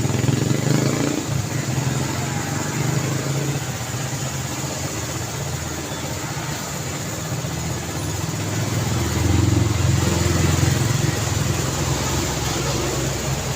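Road traffic: a steady wash of engine and tyre noise from passing vehicles, growing louder as vehicles go by about half a second in and again between about nine and eleven seconds.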